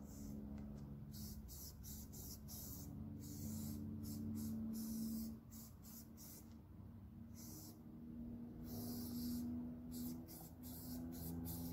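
Aerosol spray-paint can hissing in repeated bursts, short blasts and longer passes that start and stop irregularly, as paint is sprayed onto a wooden board.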